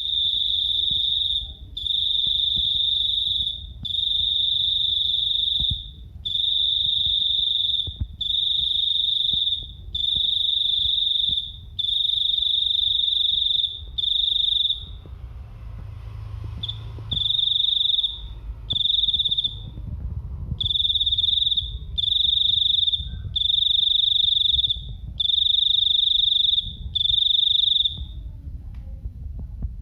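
A cricket calling: a loud, shrill, high-pitched trill in bursts of about two seconds with short gaps between them. It pauses briefly midway, resumes with shorter bursts, and stops a couple of seconds before the end. A low rumble runs underneath.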